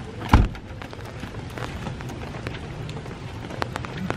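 Steady rain falling on the ground and into puddles, with scattered sharp drop taps. A single loud, short thump about a third of a second in.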